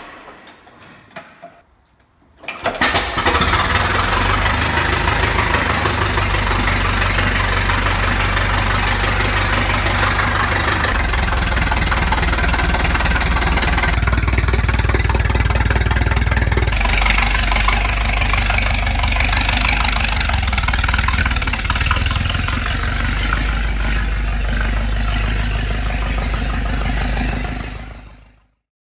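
The engine of a 1905 Benz Simplex Speedster, cranked by hand at the front, fires and catches about two and a half seconds in. It then runs loudly with a low pulsing beat, on its first start in years after being recommissioned, and fades out near the end.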